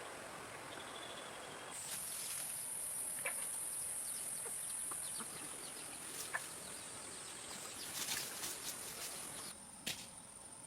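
Insects buzzing in a steady, high-pitched drone that starts about two seconds in and stops shortly before the end, with scattered light clicks over it.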